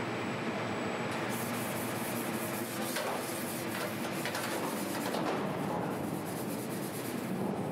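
A small hand tool scraping and rubbing over a stamped steel car body panel during surface inspection, over a steady factory-floor hum.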